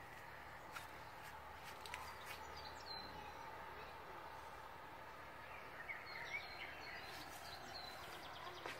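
Faint outdoor background noise with a few short bird chirps, about three seconds in and again around six seconds, and scattered light clicks.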